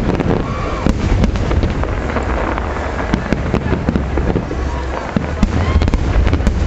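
Fireworks display going off: many sharp bangs and crackles in quick succession over a steady low rumble.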